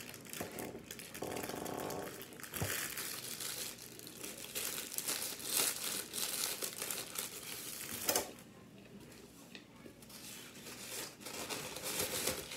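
Clear plastic wrapper crinkling as it is handled and torn open, with a sharp crackle about eight seconds in, then softer rustling as a paper napkin is pulled out and unfolded near the end.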